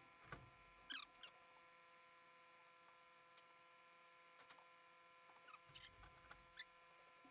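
Near silence: faint steady hum with a few soft clicks and small squeaks.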